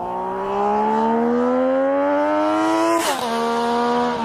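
Triumph Daytona 675's inline three-cylinder engine accelerating, its pitch rising steadily, then dropping sharply about three seconds in as it shifts up a gear and running on steadily.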